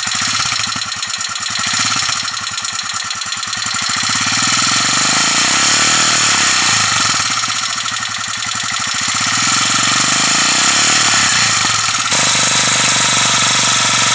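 Royal Enfield Himalayan's 411 cc air-cooled single-cylinder engine running with a steady pulsing exhaust note, a little throaty, the revs rising and falling a few times.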